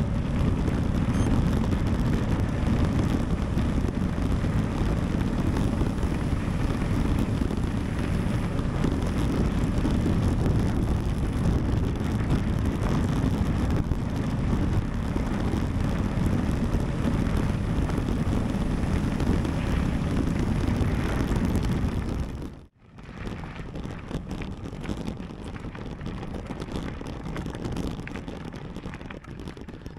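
Wind rushing over the microphone and the rumble of a mountain bike descending fast on rough ground. Near the end the sound cuts off abruptly and gives way to a quieter rolling noise.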